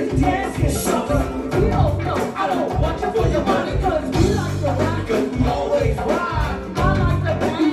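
Live go-go band playing, with a heavy bass and percussion groove and a voice singing or chanting over it.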